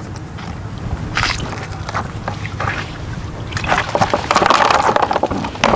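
Shallow canal water sloshing and splashing as a drag net is worked through it, with scattered small knocks; the splashing grows louder for about a second and a half past the middle.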